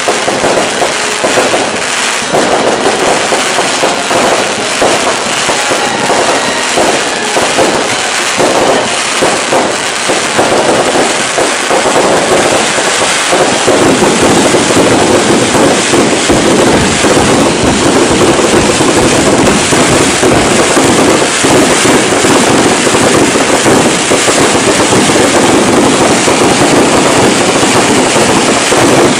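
Aerial fireworks and firecrackers bursting in rapid succession, a dense continuous crackle. About halfway through it grows louder and denser into an unbroken barrage of bangs.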